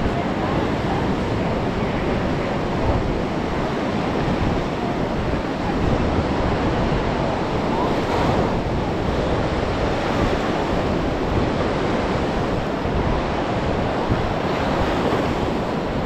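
Sea surf washing steadily onto the beach, swelling a little about halfway through, with wind rumbling on the microphone.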